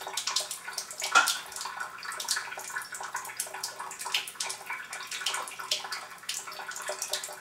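Water running steadily from the outlet spout of a countertop Chanson Miracle water ionizer and splashing into a sink.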